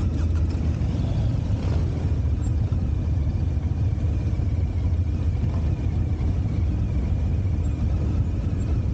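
Large V-twin motorcycle engine idling steadily, a deep, even low-pitched sound with no revving.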